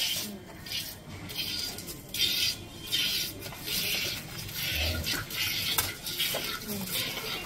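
A cow being milked by hand into a jar: squirts of milk hit the jar in rhythmic hissing spurts, about one or two a second.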